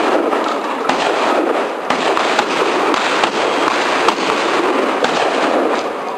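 Shotgun shots fired one after another, about one a second, over a constant harsh noise.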